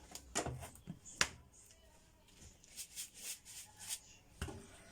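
Light clicks and taps of a glass and kitchen utensils being handled, with a sharp click about a second in, a quick run of small taps later, and another click near the end.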